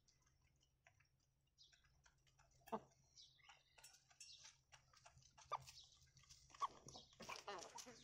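Chickens foraging on gravel: faint scattered ticks of pecking and scratching, with a few short clucks in the second half.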